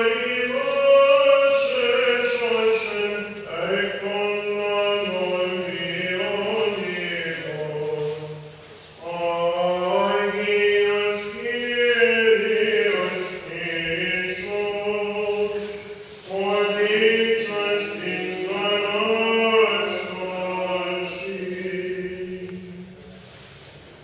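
A chanter's solo voice singing Greek Orthodox chant in three long, melismatic phrases with short breaks between them, the last phrase fading away near the end.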